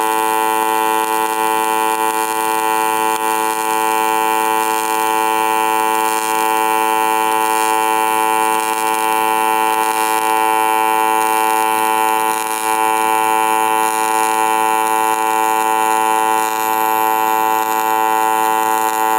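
AC TIG (gas tungsten arc) welding arc on aluminum, buzzing steadily: a constant electric buzz with a hiss on top, unbroken while the weld is run.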